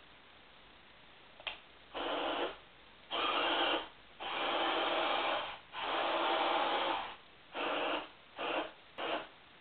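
Toy RC tank's built-in electronic sound effects playing through its small, tinny speaker: a click, then a series of buzzing bursts lasting from a fraction of a second to about a second and a half, each one cut off abruptly.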